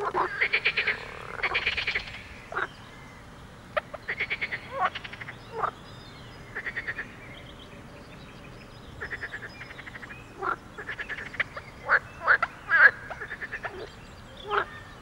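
Several frogs croaking in a chorus: rattling calls made of rapid pulses, each lasting up to about a second, mixed with short single croaks. The calls come in clusters with quieter gaps between them.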